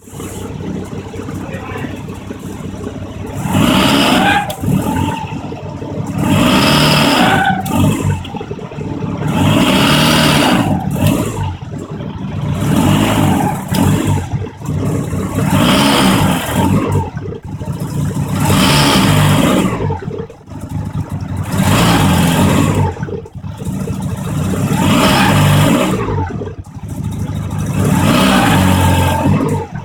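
Mazda RX-7's rotary engine revving up and falling back about nine times, roughly every three seconds, with a squeal that the owner says comes as the clutch engages and the revs drop to input-shaft speed. He says it is not a belt squeal.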